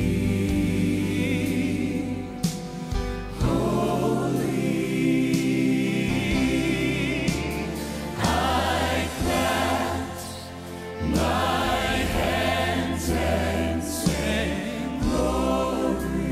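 Gospel vocal group of men and women singing in harmony over an instrumental backing.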